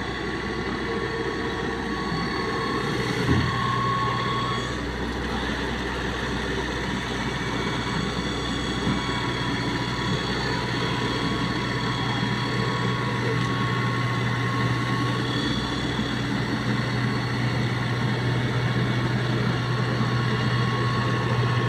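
Yanmar rice harvester's engine and machinery running steadily, a continuous mechanical drone with several steady tones, briefly louder about three seconds in.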